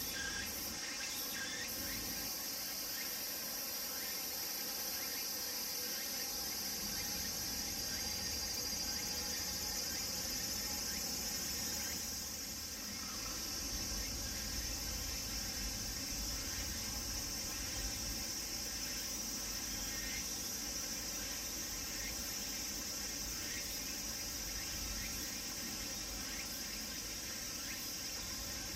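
Cicadas singing in a steady, high-pitched chorus, with a low rumble joining in about halfway through.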